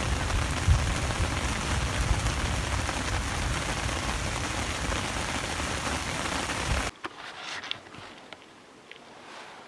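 Steady heavy rain falling in a storm, with a low rumble under it. It cuts off abruptly about seven seconds in, leaving a much quieter stretch with a few faint clicks.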